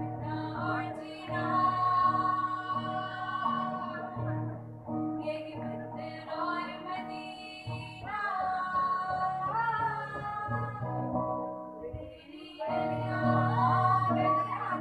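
Several young women singing together into microphones over electric guitar accompaniment, amplified through a PA, with a couple of brief pauses between phrases.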